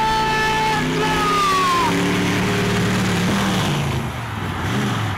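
Monster truck engine running hard as the truck accelerates across the field and jumps over a row of cars. The note rises about three seconds in, then dips and swings briefly around the jump near the four-second mark.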